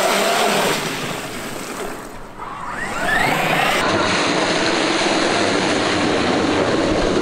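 Traxxas X-Maxx RC monster truck's electric motor whining through a puddle, with a steady rush of water spray from the tyres. The whine dips, then rises sharply in pitch about three seconds in as the truck speeds up.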